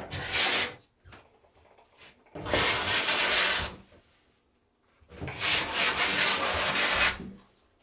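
Steam-softened wallpaper being peeled off a wall, tearing loose in three rasping pulls: one right at the start, one about two and a half seconds in, and a longer one of about two seconds near the end.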